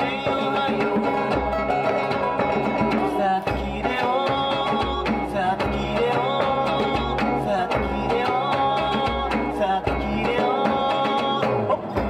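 Live acoustic folk band playing: acoustic guitar, ita-sanshin (board-bodied three-string lute), djembe and cajon, with regular low drum beats under a held melody line that steps from note to note.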